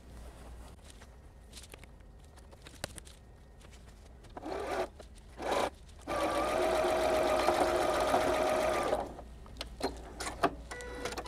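Janome computerized sewing machine stitching steadily for about three seconds across a tote bag's boxed corner, after two brief bursts; small clicks of fabric and machine handling before and after the run.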